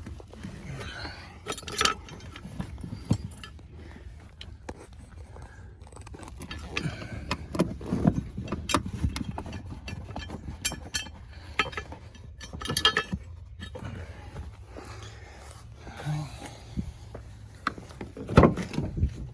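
Loose metal bolts and hand tools being handled: scattered clinks, scrapes and knocks, with a sharper knock near the end.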